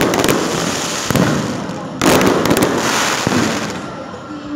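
Aerial fireworks bursting overhead: a loud bang about two seconds in, with smaller ones before it, each trailing off into crackling and sharp pops that die away near the end.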